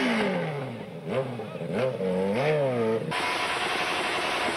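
Motorcycle engine revs falling from high, then several quick throttle blips that rise and fall. About three seconds in, an abrupt change to a loud motorcycle engine held at high revs.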